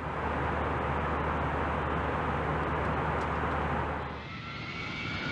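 Jet aircraft engine noise: a steady rush with a low hum underneath. About four seconds in it dips, and a higher turbine whine starts to build.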